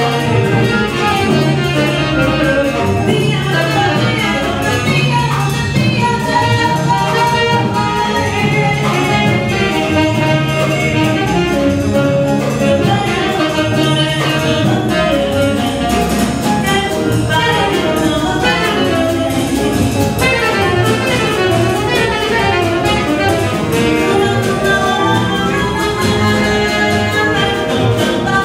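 Live small-group jazz: a tenor saxophone plays a solo line over piano, upright double bass and drum kit.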